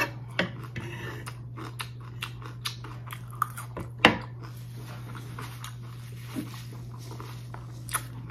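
Close-up chewing and crunching of the last bites of a salad, with a metal fork clicking and scraping on a wooden board as the scraps are picked up. A steady low hum runs underneath.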